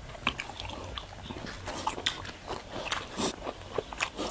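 Mouth-noise crunching and chewing of crispy deep-fried pork intestine (chicharon bulaklak), with irregular sharp crackles two or three times a second.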